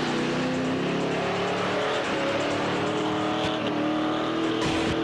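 Modified 4x4's engine running at high revs under heavy load, its pitch held steady and creeping slowly upward as it strains to pull a tanker truck across sand.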